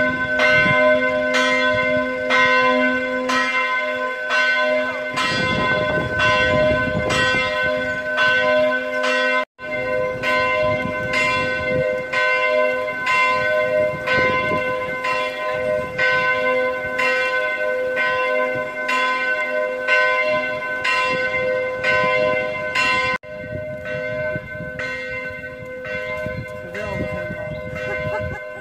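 A single church bell tolling, struck over and over at a steady pace with each stroke ringing on into the next. It goes a little quieter near the end.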